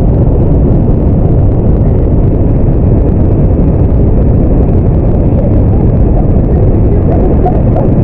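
Victoria Falls: a loud, steady rush of falling water, deepest and heaviest in the low range, with no breaks.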